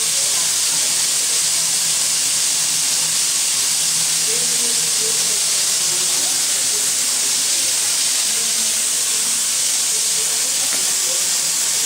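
Soviet Series L steam locomotive L-4600 venting steam: a steady, loud hiss that holds without change.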